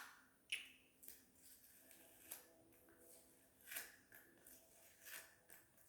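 Faint scratching as a sticker is picked and peeled off a plastic remote control, in about five short strokes a second or so apart.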